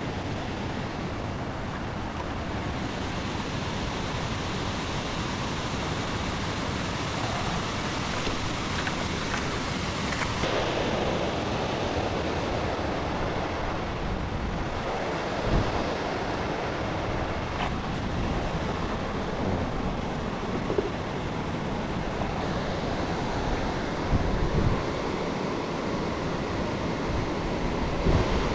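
Steady rushing noise with a few faint knocks.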